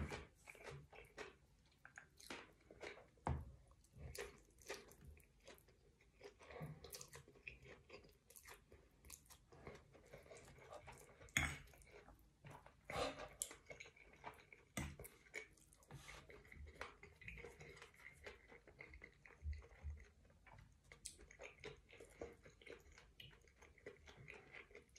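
Close-up mukbang eating sounds: a person chewing and swallowing mouthfuls of spaghetti and sausage with soft, wet mouth clicks and smacks. Now and then there is a sharper click, with the loudest a little before the middle.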